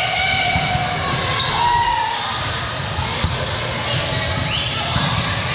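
Indoor volleyball rally: sneakers squeaking on the court, sharp hits of the ball and players calling out, echoing in a large gym.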